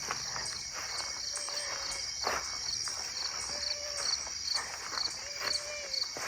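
Crickets chirping in the evening: a continuous high trill with a rhythmic pulsed chirp about three times a second on top. A soft knock or footstep comes about two seconds in and again near the end.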